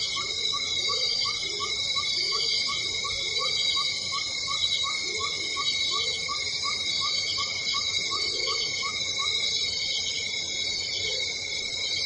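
Cicadas buzzing in a steady, dense chorus, with a second chirp repeating about three times a second that stops about three-quarters of the way through.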